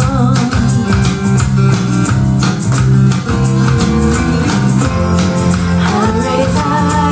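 A pop song with bass, guitar and a steady tambourine beat, played back through Sony SS-TS57 tower speakers, a bass-reflex two-way design with a 130 mm cone woofer and a 50 mm cone tweeter.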